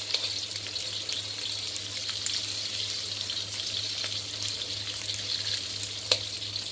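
Pieces of salted fish frying in oil in a wok: a steady frying hiss with small crackles, and one sharp click near the end.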